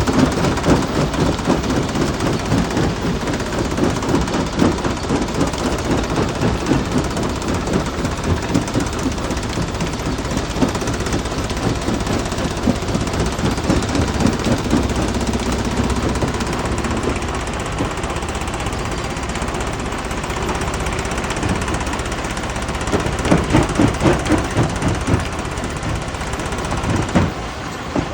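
Jaw crusher breaking rock: a continuous dense clatter of stone cracking and knocking against the jaws over a low machine hum, with a run of louder knocks about 23 seconds in.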